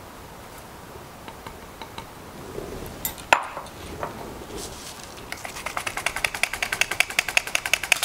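Stainless steel sifting cup rattling in a fast, even run of about nine taps a second from about five seconds in, as flour, cocoa and almond flour are sifted through its mesh. Before it come a few light clinks of utensils and one sharp knock about three seconds in.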